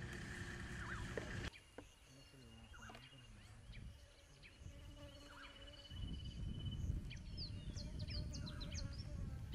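Birds chirping and trilling, with short rising and falling calls that crowd together near the end. Underneath, a low rumbling noise runs for the first second and a half, stops abruptly, and comes back from about six seconds in.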